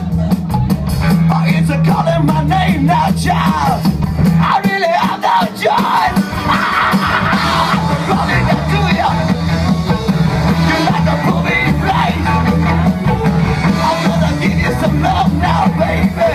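Garage-soul band playing live and loud, with yelled and sung vocals over a steady bass line. The low end drops out for about a second around five seconds in.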